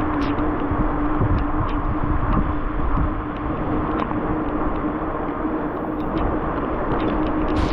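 Gusting wind buffeting the camera's microphone during a bike ride in a hurricane: a loud, steady rush with a faint steady hum underneath and scattered small ticks.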